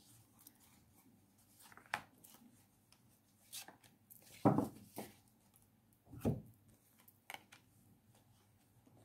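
Tarot cards being drawn from a deck and laid down on a cloth-covered table: a handful of soft slaps and slides, the firmest about four and a half and six seconds in.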